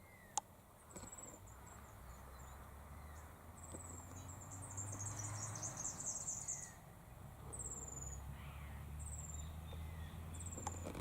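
Birdsong outdoors: short, very high chirps that drop in pitch, repeated about once a second, with a fast, dense run of high twittering in the middle. A single sharp click comes near the start, and a steady low rumble runs underneath.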